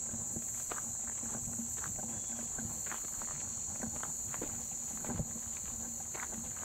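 Footsteps of people walking a trail, irregular steps and rustles, over a steady high-pitched insect chorus.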